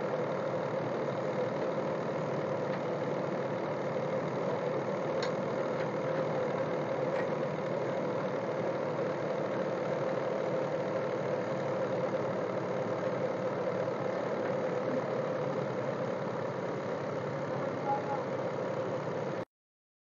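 Tractor-driven wheat thresher running steadily under load, the tractor engine and threshing drum working as bundles of cut wheat are fed in. The sound cuts off abruptly near the end.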